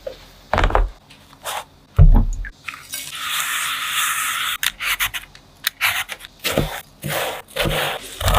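Kitchen handling sounds: two dull thumps, then hands rubbing salt over a peach's fuzzy skin, a steady scrubbing hiss for about a second and a half. After that comes a quick run of short knocks and taps as the fruit is handled and cut.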